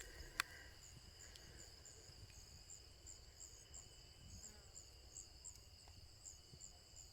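Faint chorus of insects: steady high-pitched trills with a short chirp repeating about three times a second. A single sharp click about half a second in.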